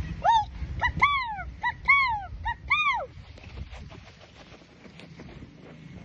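A bird calling: a run of about eight calls, each rising then falling in pitch, short and long calls alternating, over the first three seconds, then it stops.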